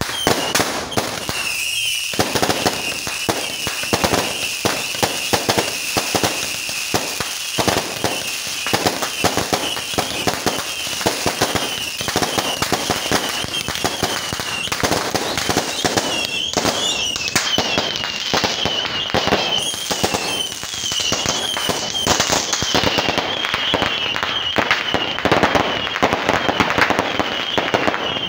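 Fireworks going off in rapid succession: a dense run of bangs and crackles from aerial shells and a multi-shot cake, with a high wavering whine beneath.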